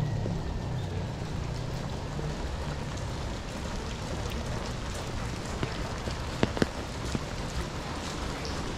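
Steady rain falling on a wet street, an even hiss with a few sharp ticks of drops about six and a half seconds in.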